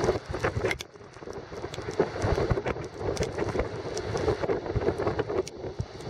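Storm wind buffeting the microphone over the hiss and wash of breaking waves and foaming seawater surging across a concrete harbour jetty, with a short lull about a second in.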